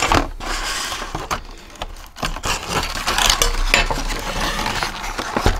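An old card-and-plastic blister pack being worked open by hand: rustling and scraping of the cardboard, with scattered clicks and knocks on a wooden tabletop.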